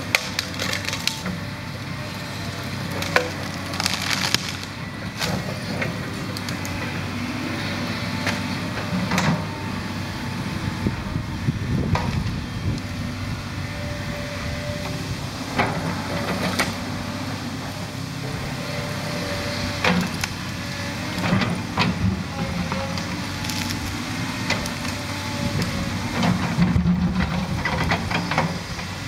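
Volvo 210 tracked excavator's diesel engine running steadily as the machine pushes into a large tree, with wood and branches cracking and snapping at irregular moments throughout.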